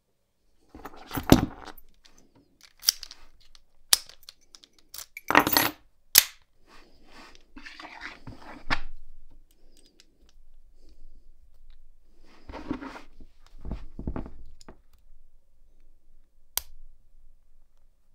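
American Lock 1100 brass padlock being picked up and handled, with sharp metallic clicks and clinks in the first few seconds, then softer handling noise as a tension wrench and pick go into its keyway, and one more click near the end.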